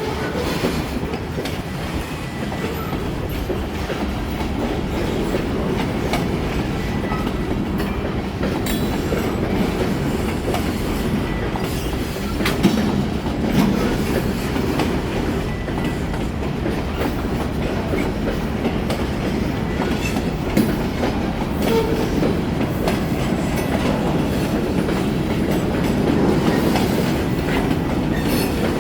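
Freight train rolling past: a steady rumble of railcar wheels clattering over the rail joints, with a few sharper clanks along the way.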